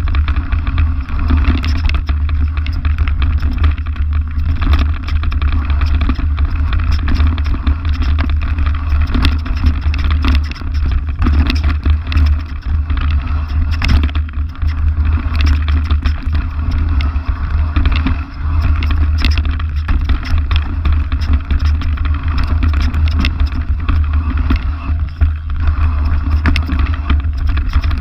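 Cube Stereo Hybrid electric mountain bike riding fast down a rough dirt trail, its frame and tyres clattering with rapid clicks and knocks over roots and stones, under a heavy steady rumble of wind buffeting the microphone.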